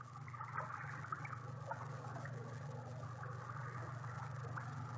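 Faint trickle of running stream water, with small scattered splashy ticks, over a steady low hum.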